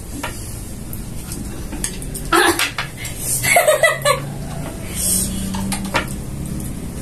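Chopsticks clicking and scraping against plates as people eat noodles, a scatter of sharp clicks with a few louder rustling bursts.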